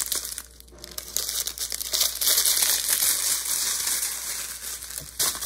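Small clear plastic bags of diamond painting drills crinkling and rustling as they are handled and pushed about on the plastic-covered canvas, a busy stream of rapid irregular crackles.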